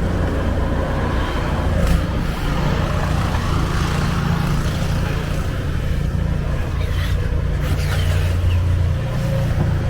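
Engine of snow-clearing machinery running, a steady low hum that grows louder through the middle and eases near the end.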